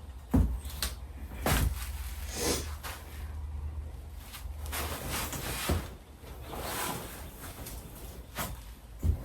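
Handling noise from prop parts being worked on: a few dull thumps and knocks, with scraping and rustling swishes between them.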